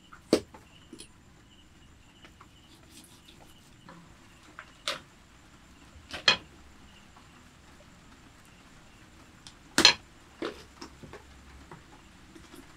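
Large curved knife chopping through a whole dressed chicken onto a wooden log chopping block: sharp single chops at irregular gaps of one to four seconds, the loudest late on.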